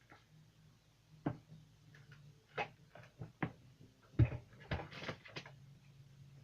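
Several separate knocks and clicks from the Bissell stick vacuum and its power cord being handled while it is plugged in, the loudest a little past four seconds in. The vacuum motor is not running.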